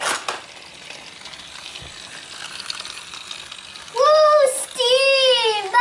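Battery-powered TrackMaster Thomas toy engine running on plastic track, its small motor and gears giving a steady ratcheting whir as it climbs. About four seconds in, a child's high voice comes in over it with long, sliding calls.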